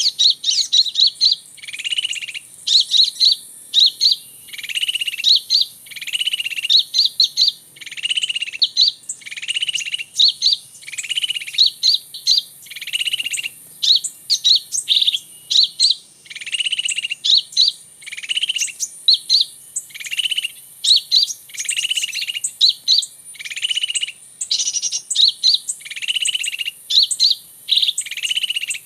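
Small bird calls used to lure birds. A phrase of quick, sharp high chips followed by a buzzy lower note repeats at an even pace, about once a second.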